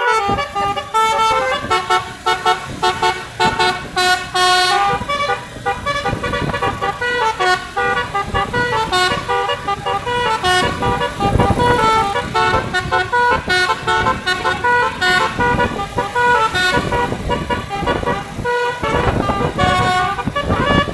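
Telolet horn on a tour bus, a multi-tone air horn, playing a long melody of quick stepped notes. Louder rushes of noise come in about eleven seconds in and again near the end.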